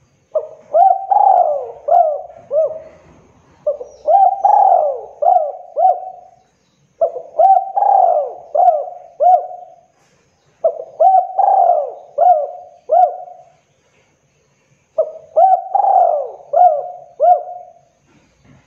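Spotted dove cooing: five phrases, each about two seconds long and made of several coos, with short pauses between them.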